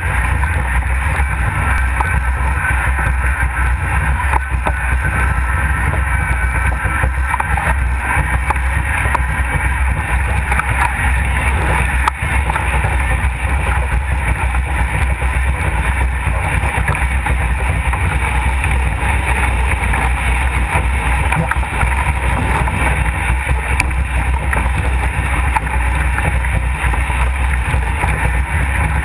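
Steady, loud rush of wind buffeting a camera mounted on a MACH2 Moth foiling dinghy, mixed with water hiss, as the boat sails fast on its hydrofoils.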